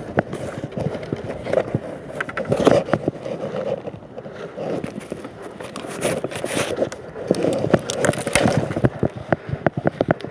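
Irregular knocks, clicks and scraping, with no chainsaw running.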